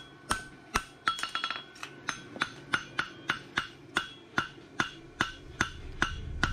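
Farrier's hand hammer striking a red-hot steel heartbar horseshoe on the anvil's horn in a steady rhythm, about two to three blows a second, each blow with a short metallic ring.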